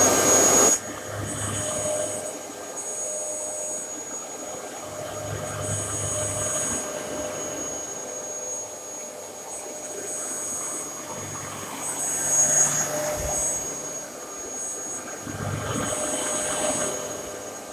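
Dyson DC33 Animal bagless upright vacuum cleaner running just after being switched on, its motor giving a steady high whine over a rushing hum. It is loudest for the first second, then settles to a slightly lower, wavering level.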